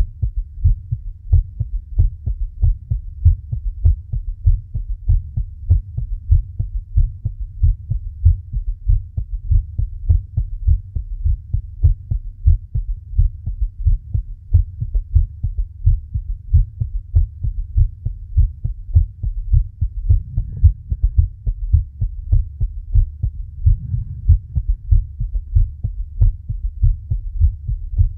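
Human heartbeat: a steady, rapid run of low, dull beats repeating evenly.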